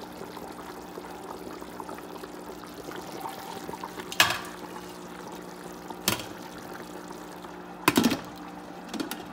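Pot of oxtails simmering under a glass lid, with a steady bubbling hiss and a low hum underneath. Sharp clinks break through about four and six seconds in, and a loud cluster about eight seconds in as the glass lid is handled.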